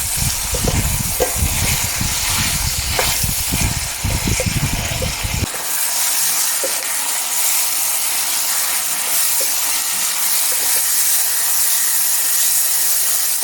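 Onions, ginger, garlic, tomato and green chillies sizzling in hot sunflower oil as they brown, a steady hissing sizzle. Short clicks of stirring come in the first few seconds.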